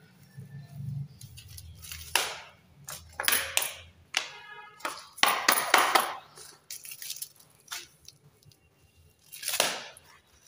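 A soft grass broom (jharu) sweeping a floor in several separate swishing strokes.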